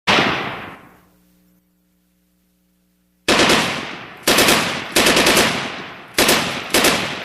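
Gunshots: one loud crack with a long echoing decay, then after a pause of about two seconds a run of shots in quick groups of one to three, each trailing off.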